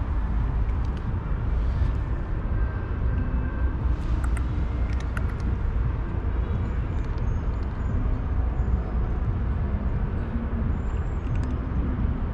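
Steady low rumble of outdoor background noise, with a few faint clicks about four to five seconds in.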